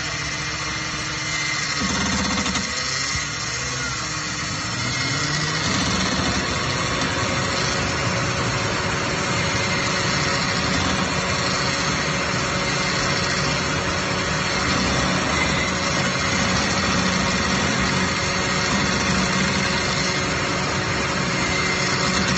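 Ford Mustang's engine running, shifting a little in the first few seconds and then steady.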